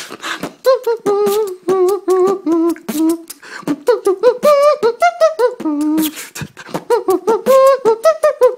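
Beatboxing: a quick run of sharp percussive mouth sounds with a hummed tune woven between them, stepping up and down in pitch.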